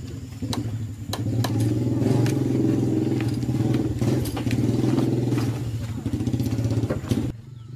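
A motor engine runs steadily at a low pitch and stops abruptly near the end. Over it come scattered knocks and clatter of people climbing a wooden ladder and stepping on plank floorboards.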